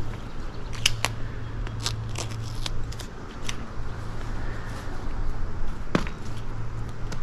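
Hands working tape onto the end of a plastic water line: scattered small clicks and crackles, with a sharper knock about six seconds in, over a steady low hum.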